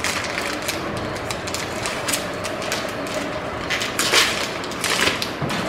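Plastic chocolate-bar wrapper crinkling and rustling in the hands, in irregular short crackles over a steady background hum.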